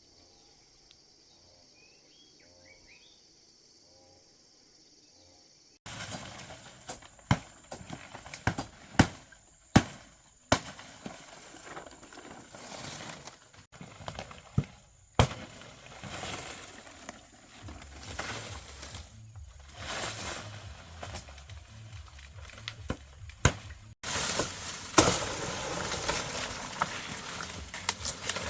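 Faint outdoor ambience at first, then from about six seconds in, a run of irregular sharp knocks and cracks over a steady rustling noise, growing louder near the end.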